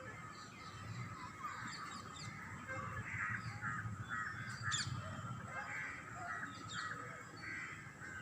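Birds calling outdoors: a run of short repeated calls, two or three a second, through the middle, with a few thin high chirps, over a steady low rumble.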